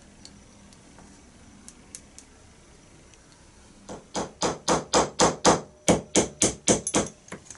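Small hammer tapping brass pins through a knife's beech handle scales during glue-up: a quick run of about fifteen strikes, roughly four a second, starting about four seconds in.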